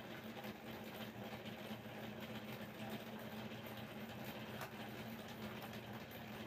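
A steady low hum with an even hiss over it; nothing starts, stops or changes.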